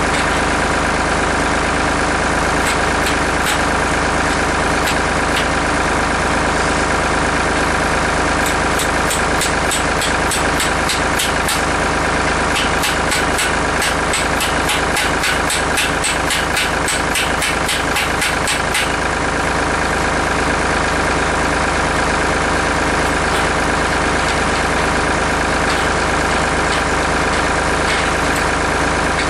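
Farm tractor engine running steadily at idle. A run of quick clicks, several a second, comes through from about a quarter of the way in until just past the middle.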